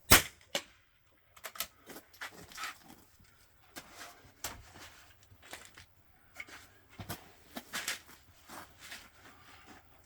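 A single .22 LR rifle shot right at the start, a sharp crack with a second smaller click half a second after. Then a run of irregular clicks, knocks and rustles from handling the rifle and gear.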